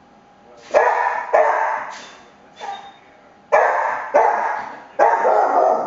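Cocker spaniel barking in sharp bursts, about five loud barks and a couple of softer ones, often in quick pairs. The barking is excited, set off by the window blinds being moved.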